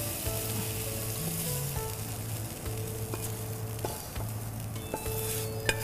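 Hot filling sizzling in a frying pan as it is scraped out with a spatula into a metal ring mould. The sizzle dies down over the first couple of seconds, and a few light clicks of the spatula against the pan and mould come in the second half, over soft background music.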